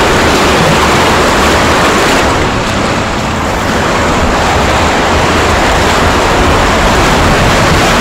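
River water rushing around an inflatable raft, with wind buffeting the action camera's microphone; a loud, even rush with a low rumble.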